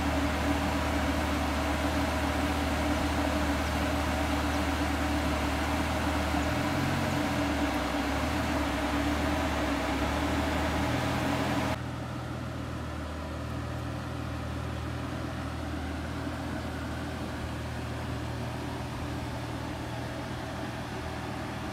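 Lamborghini Gallardo Spyder's V10 engine idling steadily, its pitch wavering briefly partway through. About two-thirds of the way in, the sound drops suddenly quieter and duller.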